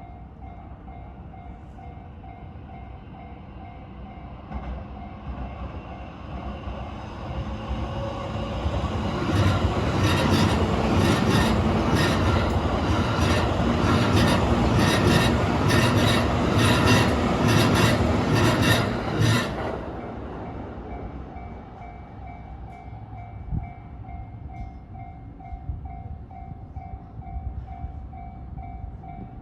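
A JR Yokosuka Line electric train passing over a level crossing. It builds up through the first third, runs loudest for about ten seconds with a regular clacking of wheels over rail joints, and drops away sharply about two-thirds in. Under it the crossing's warning bell rings steadily throughout.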